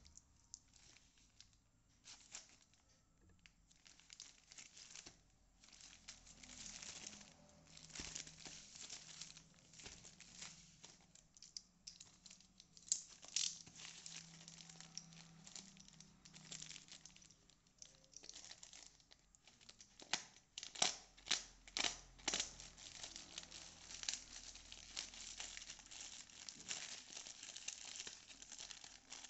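Plastic courier mailer bag crinkling as hands work it open, with a run of sharp snaps and tearing of the plastic in the second half.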